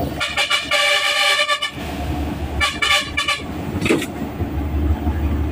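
A vehicle horn honks twice: a long blast of about a second and a half, then a shorter, broken one. Under it runs the steady low rumble of a Mitsubishi Fuso Super Great truck's 6M70 diesel engine on a road test after a pressure regulator replacement.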